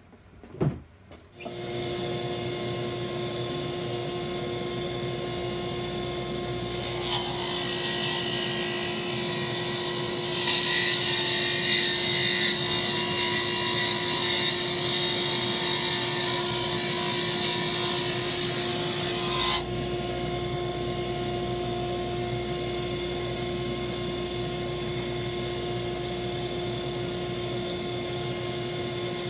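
Small benchtop table saw running with a steady whine, ripping a weathered pallet board fed with push sticks: a louder rasping hiss from about 7 s to about 20 s while the blade is in the wood, then the saw runs free again.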